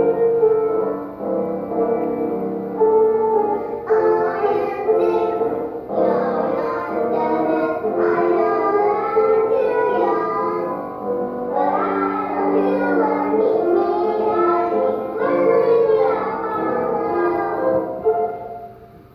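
Children singing a song with instrumental accompaniment. The accompaniment starts at once, and the voices come in about four seconds in.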